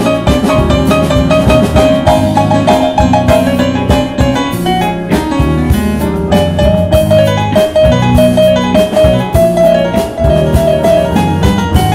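Live band playing an instrumental passage of a salsa song: keyboard, electric bass, hollow-body electric guitar and drums with cymbals, under a melody of short repeated notes.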